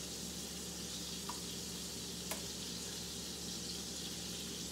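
Steady sizzling hiss of hot fat in a pan on an electric stove, over a low steady hum, with a couple of faint clicks.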